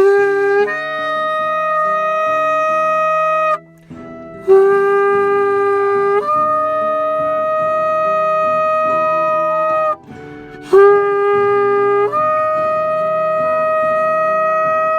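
Shofar sounding three long blasts, each opening on a short lower note and then jumping up to a higher, held note. Quieter background music with shifting low notes plays underneath.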